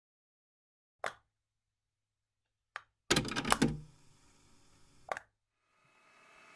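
Plastic clicks and clacks of an audio cassette and tape deck mechanism: a single click, a second click, then a quick cluster of clacks, the loudest part, and one more click. A faint hiss rises near the end.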